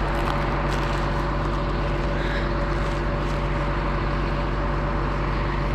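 An engine running steadily at constant speed, an even drone with no change in pitch, ending in a sharp click.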